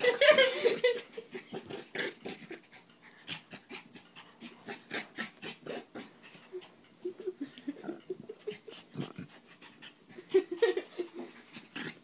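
Small black puppy breathing quickly and mouthing at a person's arm while play-biting, with many short, irregular clicks and rustles.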